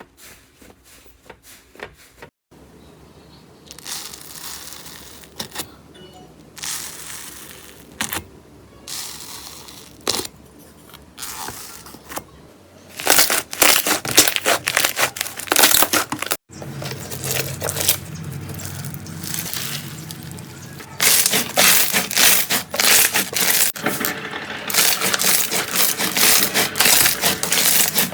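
Slime being squeezed and pressed by hand, giving dense crackling and crunching. The sound changes abruptly twice, about two and a half seconds in and again around the middle, and is loudest in the second half.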